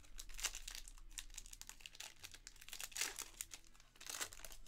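Foil wrapper of a Panini Prizm trading-card pack crinkling and tearing as it is worked open by hand: a close run of sharp crackles, with louder ones about half a second in, around three seconds and near the end.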